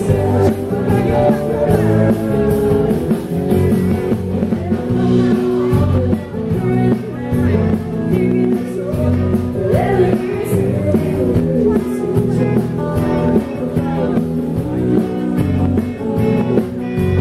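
A live band playing a rock-and-roll song, with a singer and guitar over a steady beat.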